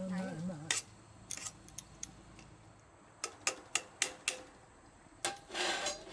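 Utensils clinking and tapping against pans and dishes during cooking: scattered sharp clicks, a dozen or so irregular strikes, with a short scraping rustle near the end.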